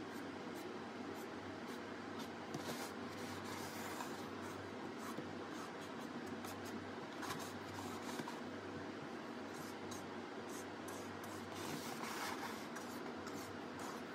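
Small paintbrush scratching in short, faint, irregular strokes over the surface of a white face mask, with light rubbing from the hand holding it, over a steady low hum.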